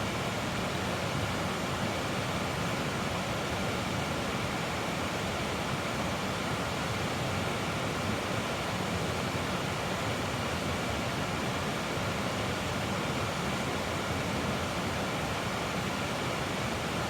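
Steady rushing of flowing creek water, an even, unbroken noise.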